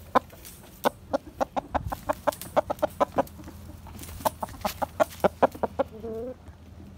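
Rooster clucking up close: a run of short, sharp clucks that quicken, a pause of about a second, another run, then one short drawn-out call about six seconds in.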